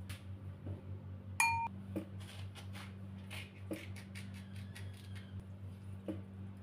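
Kitchenware handled: one ringing clink of a dish about a second and a half in, then a run of light taps and clicks, over a steady low hum.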